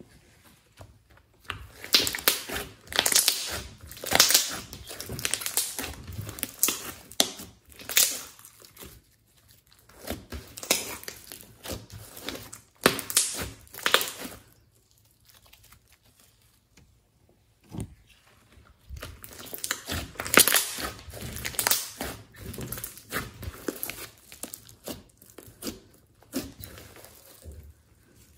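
Glossy slime being squeezed, kneaded and stretched by hand, crackling and popping in bursts of rapid clicks, with a longer pause in the middle.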